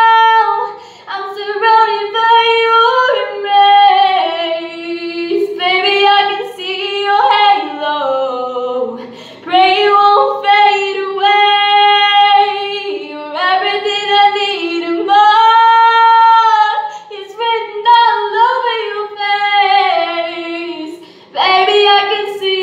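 A woman singing unaccompanied in a small tiled bathroom that makes her voice echo, in phrases of long held notes and downward glides with short breaths between them.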